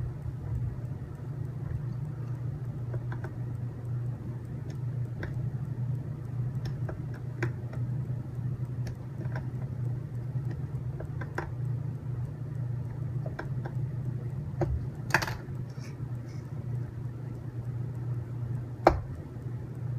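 Small screws being tightened by hand on a robot kit: scattered light clicks and taps of the screwdriver and plastic parts, with two sharper clacks about fifteen and nineteen seconds in. A steady low hum lies under it throughout.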